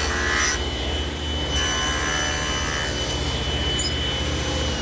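Table saw running, its blade making shallow shoulder cuts across a wooden door rail for a tenon: two passes of rushing cutting noise over the saw's steady hum and high whine. Near the end the whine starts to fall in pitch.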